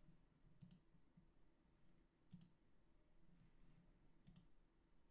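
Near silence broken by three faint computer mouse clicks, about two seconds apart.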